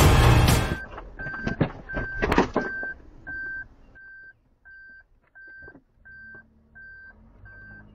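Music cuts off just under a second in, then a car's electronic warning chime beeps steadily, about three short beeps every two seconds. A few knocks and clicks come in the first few seconds.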